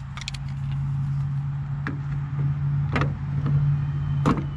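Pliers clicking against the plastic housing of a liftgate glass release switch as they grip its tabs to pull it out, a few sharp clicks spaced about a second apart, over a steady low hum.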